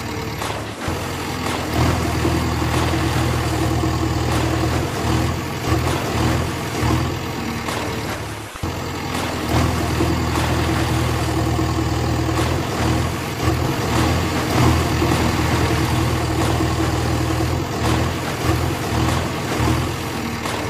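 Heavy vehicle engine running, its low rumble dropping out and coming back again and again, with a brief break about eight and a half seconds in.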